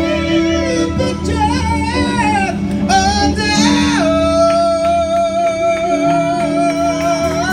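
Gospel singing with band accompaniment including guitar: a voice bends through a run of wordless notes, then holds one long note with a slight vibrato from about four seconds in.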